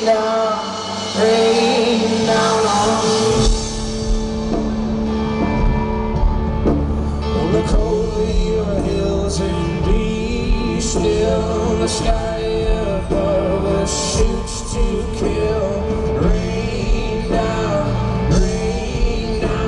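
Live folk-rock band playing at concert volume: singing over guitar, then a heavy bass and drum beat comes in about three and a half seconds in and carries on.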